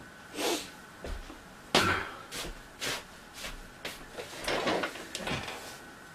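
Footsteps, knocks and rustling as a man walks up to an office swivel chair and sits down on it, with a sharp knock about two seconds in and a cluster of creaks and shuffles near the end as he settles into the chair.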